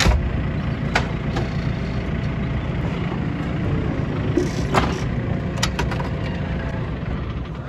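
Telehandler's diesel engine idling steadily, with a few sharp clicks and knocks.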